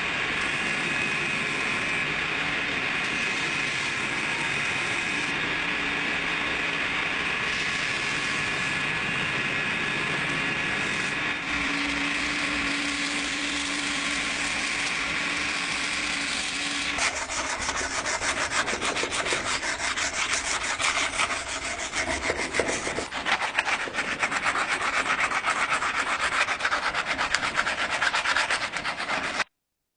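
Sanding on the knife: a steady, even sanding sound with a faint held whine, turning about two-thirds of the way in to a coarser, rapid rubbing that goes on until it stops abruptly just before the end.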